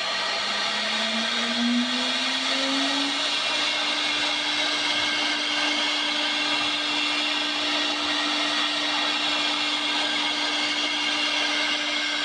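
CNC router spindle spinning up to its set 18,000 rpm, its whine climbing over the first few seconds and then holding steady. The bit cuts a straight groove through a laminated particleboard panel, with a steady hiss of cutting noise.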